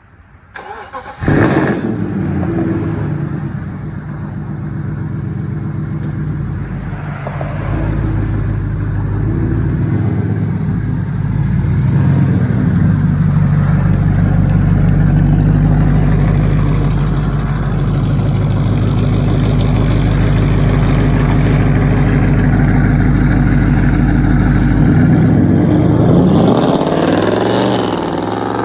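BMW 545i's 4.4-litre V8 exhaust popping and crackling. It comes in suddenly about a second in, runs as a steady engine note, and near the end its pitch sweeps up and down.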